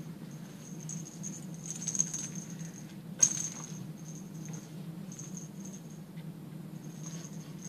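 A kitten batting a polka-dot cat toy ball with a bell inside: the bell jingles in short bursts as the ball rolls and is pawed, with one sharp knock about three seconds in.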